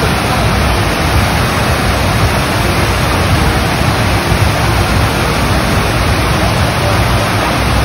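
Steady, loud rush of water from a surf-simulator wave machine, a sheet of pumped water running up its padded ramp.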